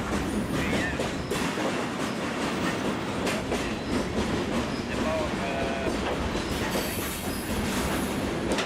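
Freight train cars rolling past, wheels clicking over rail joints, with a few brief faint wheel squeals.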